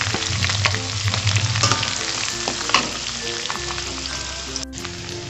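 Small dried anchovies sizzling as they fry in hot oil in an aluminium wok, with a metal spoon clinking against the pan now and then as they are stirred.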